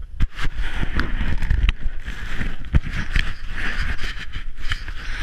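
Handling noise from a camera being moved about: irregular knocks and rustles against the microphone over a steady rumble and hiss of wind on the mic.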